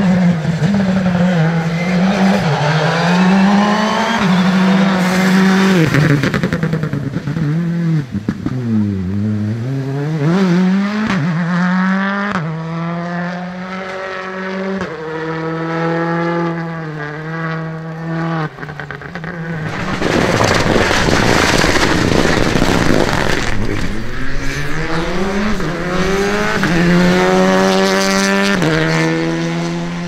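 Rally cars at full speed on a stage, engines revving up through the gears with the pitch climbing and dropping at each shift. About two-thirds of the way through, a car passes close and loud with a burst of road noise.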